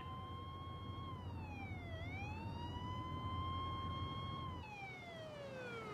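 Police car siren on a slow wail, heard from inside the car. It holds a steady pitch, dips and rises again about two seconds in, then falls steadily near the end as it winds down, with low engine and road hum under it until then.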